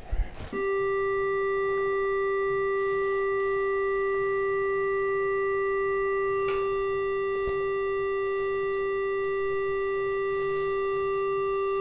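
Activation tone of a FOTEK ONYX electrosurgical generator: one steady, unbroken electronic tone that starts with a click about half a second in, sounding while the monopolar electrode knife cuts soft tissue in blend (cut-and-coagulate) mode. A high hiss comes and goes over the tone.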